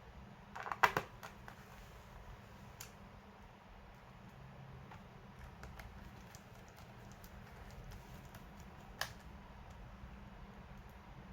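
Light clicks and taps of hands working on a laptop: a quick cluster of clicks about a second in, a single click near three seconds and another sharp click about nine seconds in, over a faint steady hum.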